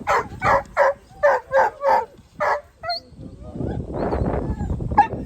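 Working sheepdog barking, a quick run of about seven barks, followed by a low rushing noise.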